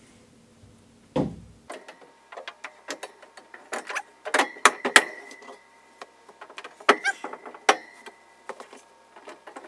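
Ventilated cupboard shelves being picked up and dropped into their wall clips: a run of sharp knocks and clinks, several of them followed by a brief ringing tone.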